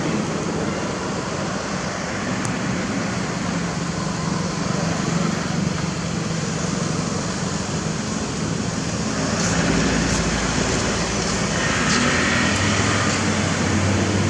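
Road traffic: a steady engine hum with road noise, getting heavier with a low rumble from about nine seconds in.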